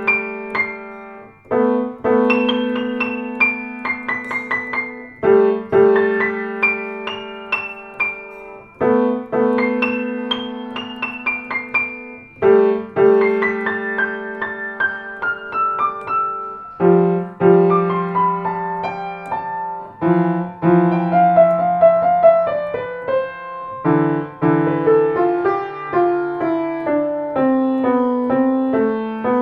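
Solo piano playing on a Blüthner grand. Held chords are struck about every three and a half seconds under quick runs of high notes that fall away. In the second half it moves to lower chords with descending lines.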